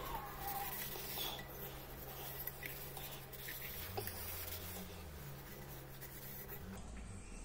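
A cloth rubbing and scrubbing the inside of a tarnished copper bowl by hand, a continuous light scratchy rubbing with a small tap about four seconds in.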